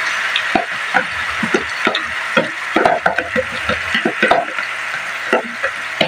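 A spatula scraping and tapping chopped pechay leaves out of a plastic container into a frying pan: irregular scrapes and rustling over the pan's steady sizzle.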